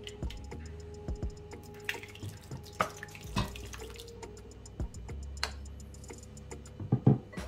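A thick cottage cheese and milk mixture poured from a glass bowl, dripping and splatting onto cooked spaghetti in a ceramic baking dish, among small clicks and knocks of utensils. A few sharp knocks near the end are the loudest sounds.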